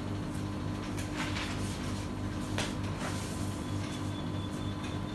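Steady low hum with a few light clicks and taps scattered through it.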